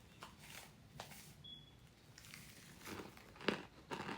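Crisp crunching bites and chewing of a green apple flavored starch chunk, with the crunches loudest from about three seconds in. Faint crinkling and handling noises come before them.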